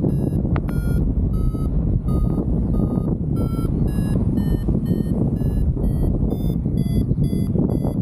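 Paragliding variometer beeping in quick short pulses, two to three a second, its pitch shifting and higher in the second half: the sign that the glider is climbing in lift. Strong wind rushing over the microphone is louder than the beeps.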